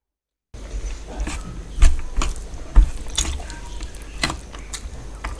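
Wet eating sounds begin about half a second in: fingers squishing and mixing rice with curry gravy on a steel plate, with irregular sharp smacks and clicks.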